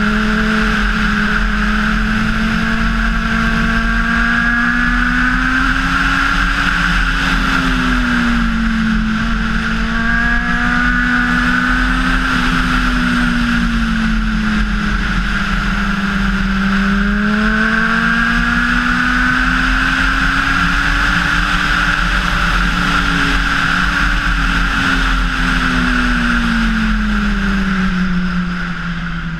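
Honda CBR600RR inline-four engine running under way, its pitch rising and falling gently with the throttle, over a steady rush of wind. Near the end the engine drops in pitch and gets quieter as the throttle is rolled off.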